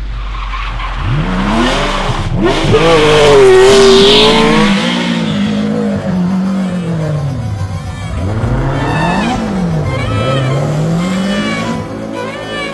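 Rally car engine at full throttle on a night stage. The revs climb steeply and are loudest a few seconds in as the car passes. They then drop and rise again several times with gearchanges as it drives on.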